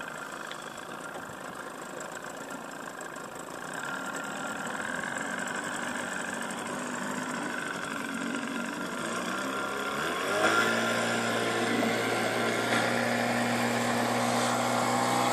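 Tow boat's engine idling, then revving up about ten seconds in and settling into a steady, louder drone as it pulls a wakeboarder up out of the water.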